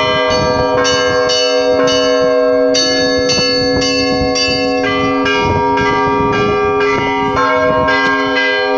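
Several church bells rung together by hand: smaller bells struck rapidly, about two strikes a second, over the long hum of a larger bell.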